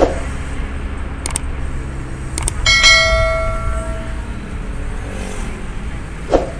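Steady low road and engine rumble inside a moving car. Over it, two clicks and then a ringing bell chime that fades out over about a second: the sound effect of a YouTube subscribe-button and notification-bell overlay. A short thump near the end.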